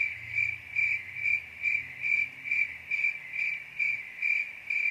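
Crickets chirping steadily, about two to three chirps a second. It starts and stops abruptly, cutting across the speech, which marks it as an added 'crickets' sound effect.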